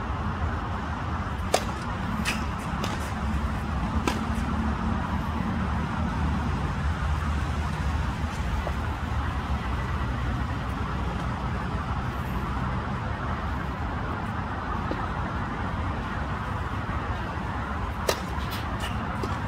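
A tennis racket striking the ball on a serve, a sharp pop about a second and a half in, followed by a few fainter knocks of the ball. Another serve strike and its knocks come near the end. Under them runs a steady hum of distant traffic.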